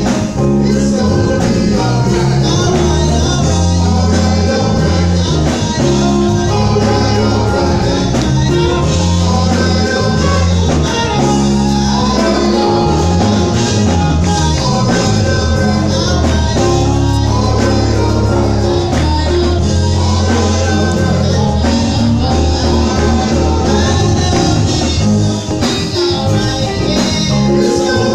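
Gospel vocal group of men and a woman singing live into microphones over amplified instrumental backing with a prominent bass line.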